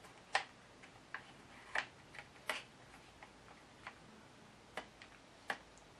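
Light clicks and taps, about ten at uneven spacing, as a Scotty 1132 emergency crank handle is worked back onto the nut at the top of a Scotty electric downrigger.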